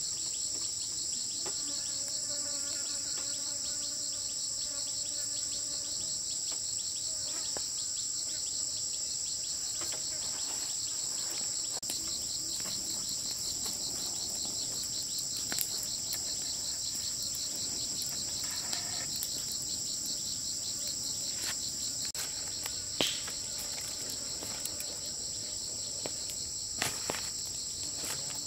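Steady, shrill insect chorus with a fine rapid pulse. A few light taps sound over it, the sharpest about two-thirds of the way through.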